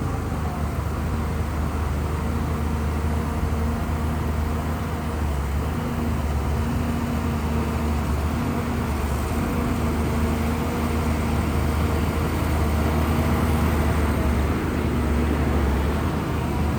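Shantui bulldozer's diesel engine running steadily under load, a deep hum with a steady engine note that swells and eases slightly.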